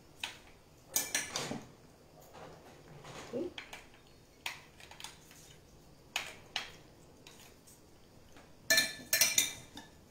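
A spoon scraping and clinking against a glass dish while scooping diced salmon, in scattered short strokes, with a louder run of clinks near the end.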